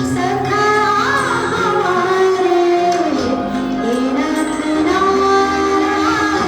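A song: a singing voice carrying a melody with held notes and slides between pitches, over steady instrumental accompaniment.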